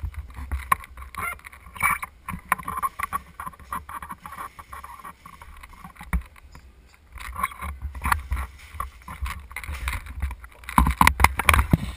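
Handling noise from a camera mounted on an airsoft gun: irregular knocks, clicks and rustling as the player moves with it, over a low rumble, with a dense cluster of knocks near the end.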